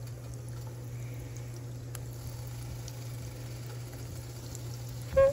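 Biscuit-dough donuts frying in hot oil, with a steady bubbling and small crackling pops: the oil is hot enough to start cooking them at once. A low hum runs underneath, and a brief vocal sound comes at the very end.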